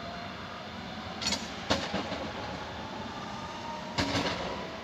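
DB class 423 S-Bahn electric trains at a station platform: a steady electric hum and rumble, with sharp metallic clanks about a second and a half in and again near the end.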